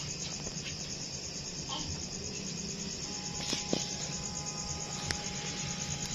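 Steady high-pitched trilling of insects, with a few faint clicks. A faint steady tone comes in about halfway through.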